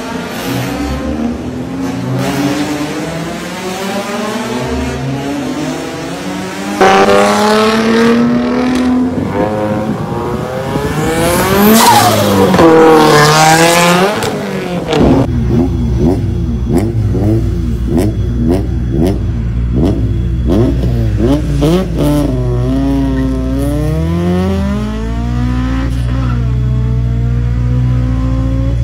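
Honda Civic Type R EK9's naturally aspirated 1.6-litre B16B four-cylinder revving hard, its pitch climbing repeatedly into the VTEC high-rev range, loud, with a sharp jump in loudness about a quarter of the way in. In the second half it settles to a lower steady drone broken by short rev blips.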